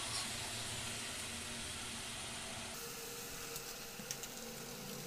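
Chicken and masala frying gently in a pan over a low flame: a quiet, steady sizzle with a few small pops about four seconds in.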